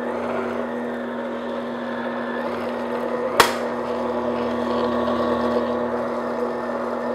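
Electric stand mixer running at one steady speed, its motor humming at a fixed pitch as the flat beater works thick cake batter in a glass bowl. One sharp click comes about three and a half seconds in.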